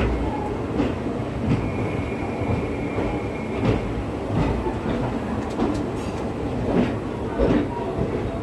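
Train passing at speed, its wheels clacking over the rail joints about every half second to a second above a continuous low rumble. A faint thin whine is heard for about a second early in the pass.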